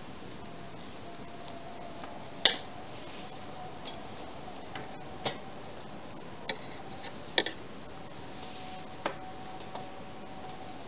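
Knitting needles clicking against each other as stitches are worked and the piece is handled: about ten sharp, irregular clicks, one every second or so, two of them much louder with a short metallic ring, over a faint steady hum.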